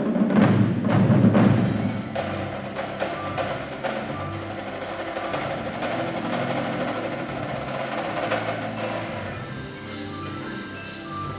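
Indoor percussion ensemble playing: loud drum hits for about the first two seconds, then softer held chords with mallet keyboards and bells, with short repeated mallet notes near the end.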